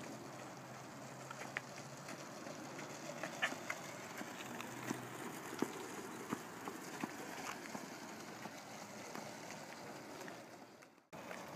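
Small skateboard wheels rolling on asphalt with a steady rumbling hiss, mixed with scattered footsteps on the road. The sound fades and drops out briefly near the end.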